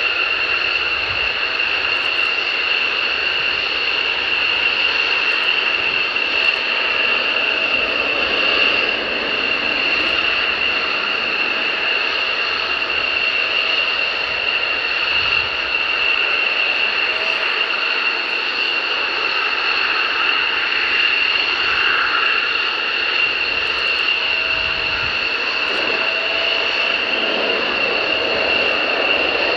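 F-16 fighter jets' Pratt & Whitney F100 turbofans running at low taxi power: a loud, steady high-pitched whine over an even jet rush.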